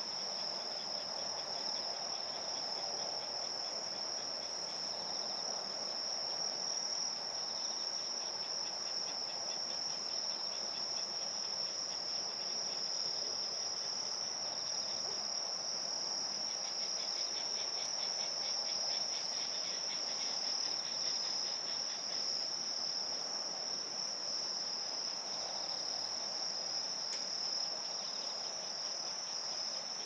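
A chorus of autumn crickets: one steady high trill that never breaks, with rapid pulsing chirps a little lower that grow stronger in the middle stretch.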